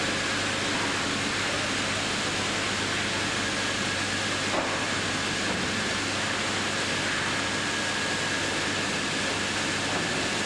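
Band saw line machinery running steadily: an even hiss with a faint high whine and a low hum, and one small click about four and a half seconds in.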